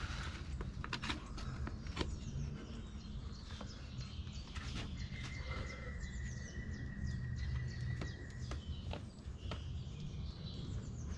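Small woodland birds chirping over a steady low rumble, with scattered short clicks and taps. About five seconds in, a steady high tone is held for roughly three and a half seconds.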